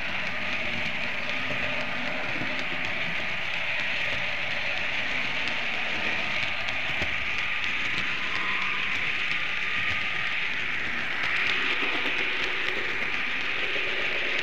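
Märklin model train running along the track, heard close up from the moving train: a steady rushing rattle of wheels and pickup on the rails, growing a little louder about three-quarters of the way through.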